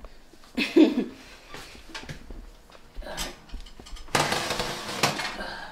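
Kitchen handling sounds: a short loud knock about a second in, a few light clicks and clatters, then about a second and a half of loud rushing noise near the end.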